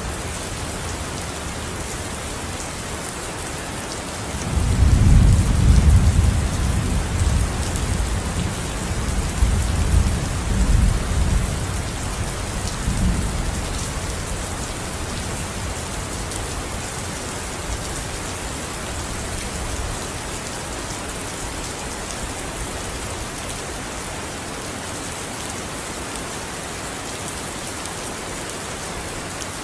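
Steady rain falling, with a long low rumble of thunder starting about four seconds in. The rumble peaks at once, swells again a few seconds later, and dies away after about nine seconds.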